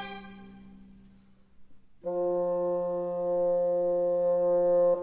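Orchestral background music: a chord dies away, then after a short pause a brass chord, horn-like, comes in about two seconds in and is held.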